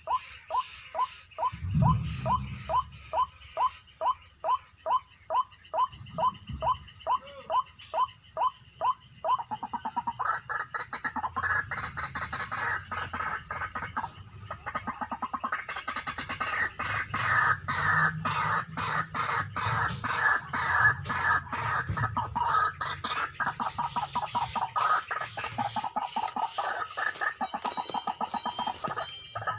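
White-breasted waterhens calling: a rapid run of repeated "kru-ak" notes, about three a second, for the first nine seconds. It then swells into a dense, overlapping chorus of calls with deeper notes underneath.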